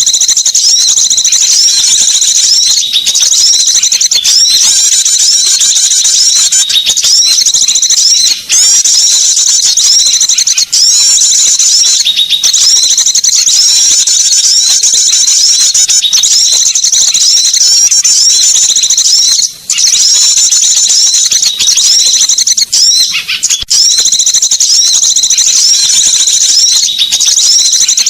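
Loud, dense high-pitched twittering and chirping of small songbirds, the calls repeating rapidly nearly without a break: a bird-lure (suara pikat) recording meant to draw small birds in.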